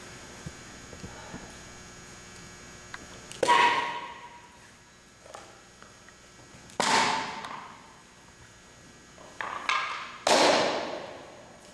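Wooden boards broken by taekwondo strikes: three loud sharp cracks about three and a half seconds apart, each echoing for about a second in the gymnasium.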